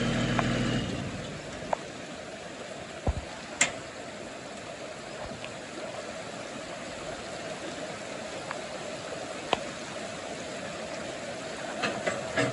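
Steady rushing of flooded creek water. A truck engine idling fades out about a second in, and a few sharp clicks cut through the water sound.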